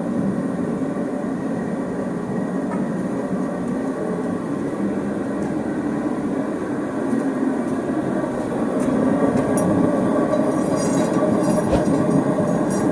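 Steady rumbling noise of running workshop equipment, a little louder from about two-thirds in, with a few faint ticks near the end.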